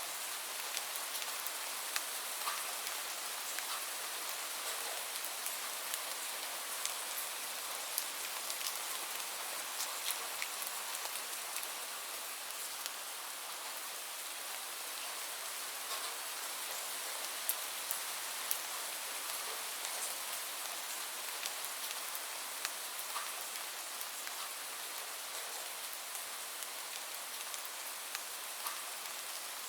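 Steady rainfall, an even hiss with scattered light drop ticks on a surface.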